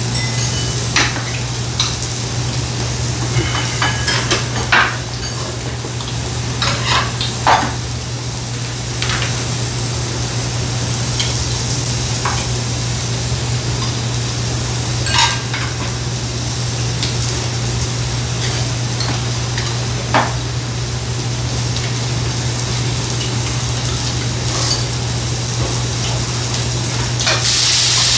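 Food sizzling in a pan at the table, over a steady low hum, with chopsticks and dishes clicking and clinking now and then. The sizzle grows louder near the end.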